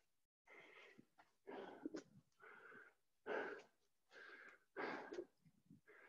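Faint, hard breathing of a man out of breath from doing burpees, about one breath a second.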